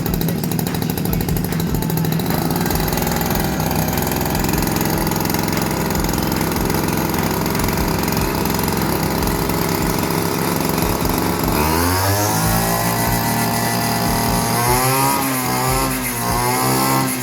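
Stihl FR 3001 backpack brush cutter's two-stroke engine running steadily. About two-thirds of the way through it is revved up, and near the end the revs rise and fall several times.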